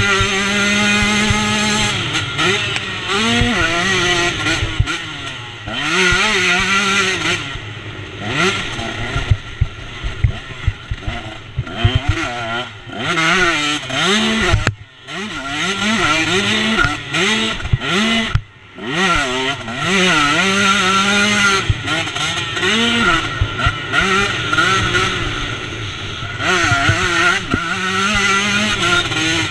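KTM 125 two-stroke motocross engine revving hard and falling back again and again as the rider works the throttle and gears. Twice, about halfway through, the sound drops away briefly before picking up again.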